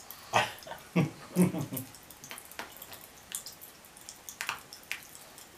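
Cola popping candy crackling in the mouth: scattered sharp little pops and clicks, irregular throughout. A brief low vocal sound comes about a second in.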